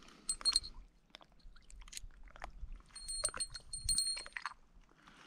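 A small metal bell tinkling in two short spells, the second longer, among light clicks and handling noises.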